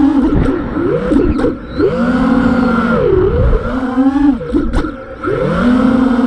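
FPV freestyle quadcopter's brushless motors (TBS Masterpilot 2400kV) and 5-inch props whining. The pitch drops sharply and climbs again over and over as the throttle is chopped and punched, with brief dips in level about a second and a half and about five seconds in.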